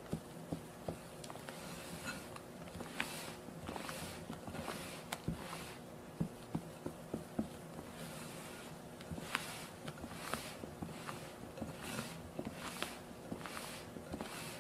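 Silicone spatula folding meringue into cheesecake batter in a glass bowl: a run of soft swishes and squelches with light clicks and scrapes against the glass, about two strokes a second at times.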